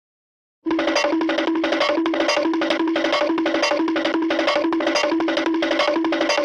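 Cartoon running sound effect: a quick, even patter of taps alternating between a low note and a higher one, starting under a second in.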